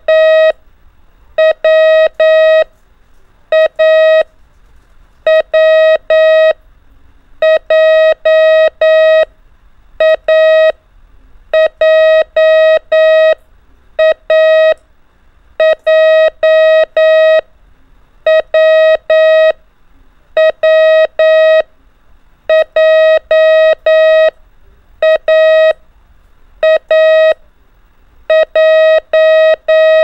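Morse code practice tone: a single steady beep keyed on and off in dots and dashes, sending groups of the letters A, W and J with short pauses between letters.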